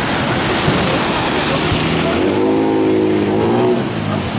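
Crowd of spectators chattering, with one voice drawn out for about a second and a half near the middle.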